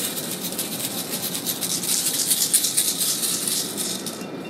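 Small handheld toy rattle shaken quickly and continuously, a fast dry rattle that dies away about four seconds in.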